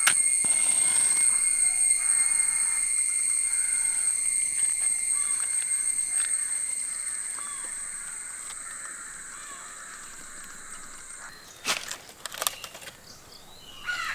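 Outdoor ambience: a steady high-pitched drone that slowly fades, then a few short sharp snaps near the end.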